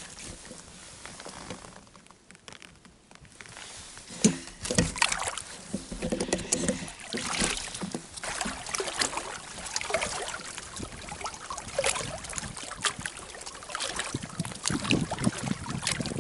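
Scattered knocks, clicks and rustles of fishing gear and a mesh landing net being handled on an inflatable pontoon boat, with light water trickling and sloshing, quieter for a moment about two seconds in.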